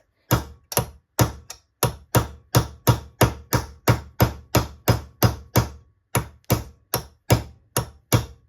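Hammer striking a screw set into a brass fitting, steady blows about three a second with a short pause around six seconds in, driving out the steel piece stuck inside the brass.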